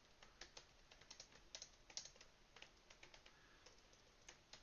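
Computer keyboard typing: faint, quick, irregular key clicks.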